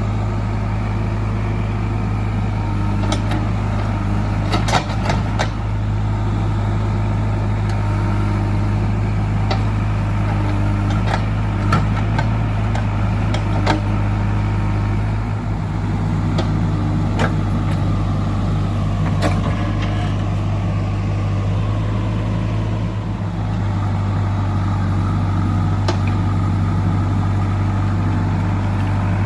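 JCB 3DX backhoe loader's diesel engine running steadily under a low hum, with scattered sharp knocks and clanks and a slowly falling tone about two thirds of the way through.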